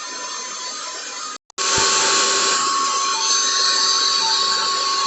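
Electric air pump running steadily, inflating an air mattress. It cuts out for a moment about one and a half seconds in, then runs louder.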